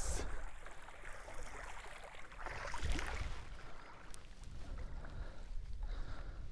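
Shallow creek water sloshing and splashing as a crab net is hauled in by its rope, with a louder swell of splashing about two and a half seconds in, over a low wind rumble on the microphone.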